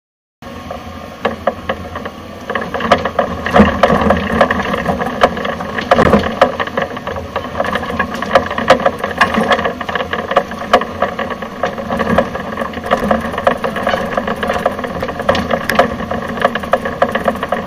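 Wacker Neuson 28Z3 mini excavator's diesel engine running under load, with many irregular sharp knocks and rattles from the machine working the concrete.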